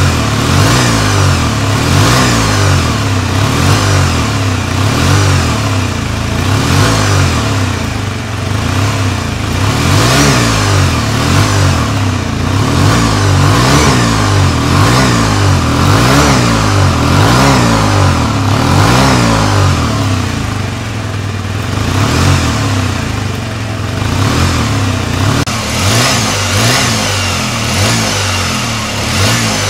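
Honda CBR250R MC19's 250 cc inline-four engine running steadily, its pitch rising and falling about once a second.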